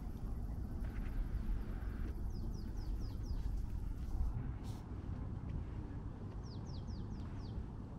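A songbird calls twice, each time a quick run of about five short chirps that sweep downward in pitch, over a steady low background rumble. A single sharp click comes between the two runs.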